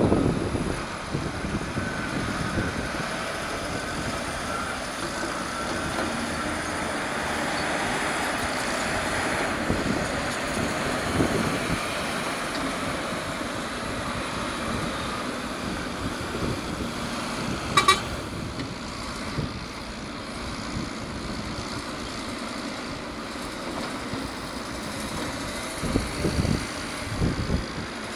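Caterpillar D6R crawler dozer's diesel engine running steadily under load as it pushes dirt. A single short beep about eighteen seconds in, and a few low thumps near the end.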